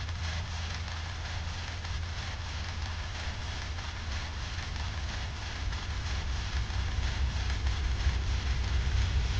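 Hand file rasping on a steel knife blank, filing the tang shoulders even against a file guide, over a steady low hum. The rasping gets a little louder about six seconds in.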